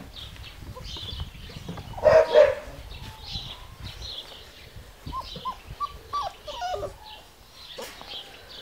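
Giant Schnauzer puppies barking in play: one loud short bark about two seconds in, then a few high, short yelps between about five and seven seconds.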